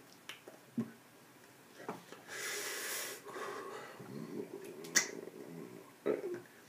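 A man's breathing and small mouth and hand noises. There are a few scattered clicks, a breathy exhale about two and a half seconds in, soft low murmurs, and a sharp tap about five seconds in.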